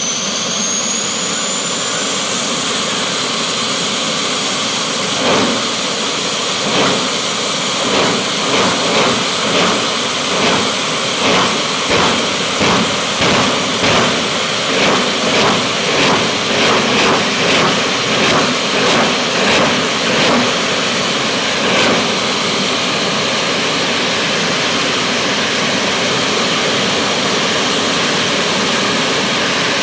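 Jet funny car's turbine engine running loud and steady at the start line, with a high whine rising near the start. From about five seconds in to about twenty-two seconds it pulses rhythmically, about two pulses a second, then settles back to a steady run.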